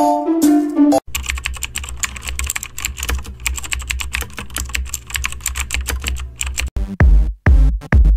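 Rapid typing on a computer keyboard, a dense run of key clicks over a steady low hum. It follows a brief melodic music phrase, and near the end an electronic beat with heavy bass thumps cuts in.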